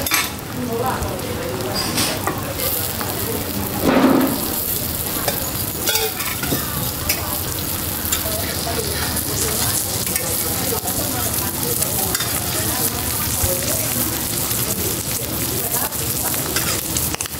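Roti frying in oil on a hot flat griddle: a steady sizzle with scattered light knocks, and one brief louder sound about four seconds in.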